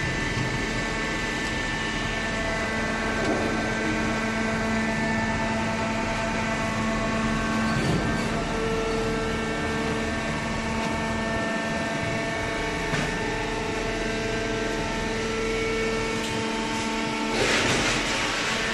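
Hydraulic cardboard baler running, its electric motor and pump giving a steady hum with shifting higher tones. A louder rushing burst comes near the end.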